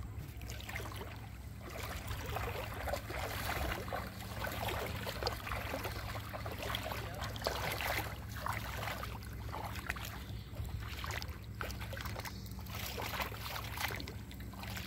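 Shallow water sloshing and splashing as a man wades through it and hauls a cast net in by its rope, busiest through the middle of the stretch, over a steady low hum.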